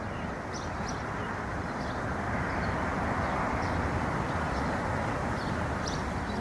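Steady rushing of ocean surf that slowly swells, with faint, short high chirps scattered through it.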